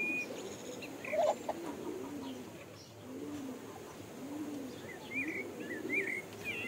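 Pigeons cooing: a run of low coos, about one a second, with short high chirps of small birds near the end.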